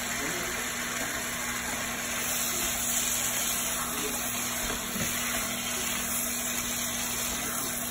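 Raw goat liver pieces sizzling in a frying pan of hot oil-and-spice masala, a steady hiss, with a faint steady hum underneath.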